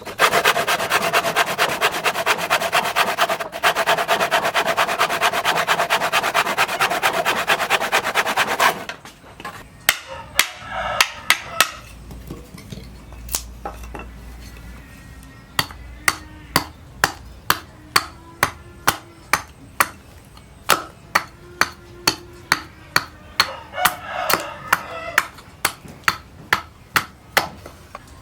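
Hammer blows on hot steel. For about the first nine seconds the strikes come very fast and close together. After a short lull come single, evenly paced blows, about two a second, each with a brief metallic ring.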